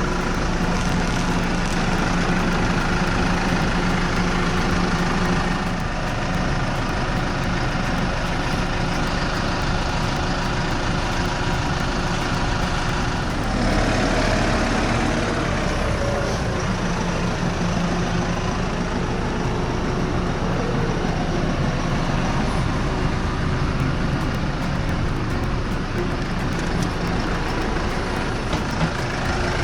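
A farm vehicle's engine running steadily, with its note shifting for a while about halfway through.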